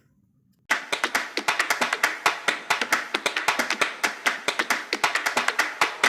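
Background music made of fast, crisp tapping percussion, starting suddenly about a second in after near silence.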